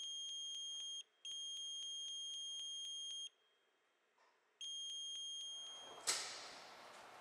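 Electronic alarm beep from a baler monitor: a steady high tone with a fast ticking pulse in it, sounding in three stretches of about two, two and one seconds with short silences between. About six seconds in a sharp click is followed by a steady hiss of room noise.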